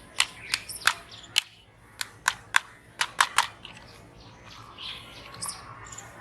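About ten sharp plastic clicks and clacks in quick succession from a toy car being handled, thinning out to fainter rustles about halfway through.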